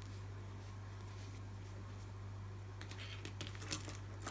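A steady low hum, then in the last second or so a few light metallic clicks and snips from scissors taken up to trim the combed-out yarn.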